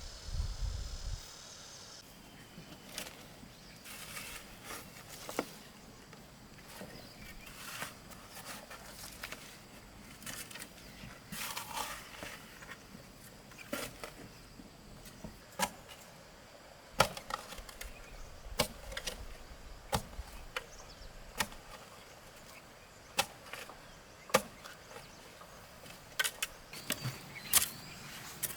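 A series of sharp knocks and clicks of hard objects striking, irregular and a second or two apart, louder and more frequent in the second half, over a faint background.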